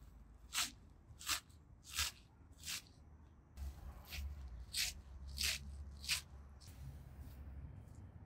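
Rhythmic hand-worked scraping or swishing strokes, about one every two-thirds of a second, with a short pause in the middle.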